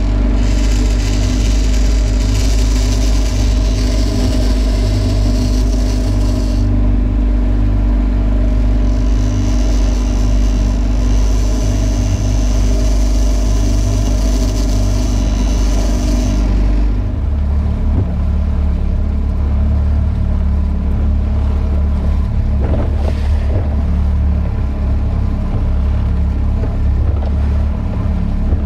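Outboard motor running at a steady throttle, a loud constant drone. Its tone changes abruptly about 17 seconds in.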